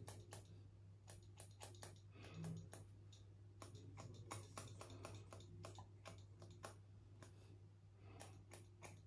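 Barber's scissors snipping stray beard hairs freehand: a faint run of quick, irregular small clicks with a few short pauses, over a steady low hum.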